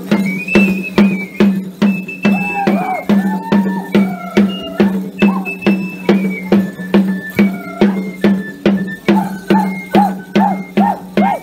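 Festive dance music with an even beat of about two and a half strikes a second, a rattle or shaker, and a high whistling melody line.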